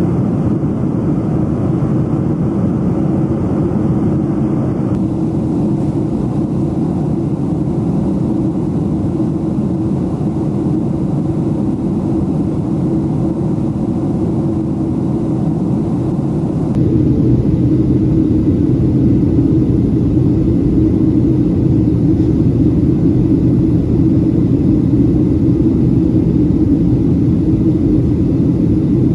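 Steady low roar of engine and airflow noise heard inside the cabin of a Boeing 737-700 in descent. The tone shifts abruptly about 5 seconds in, and about 17 seconds in it changes again and gets slightly louder.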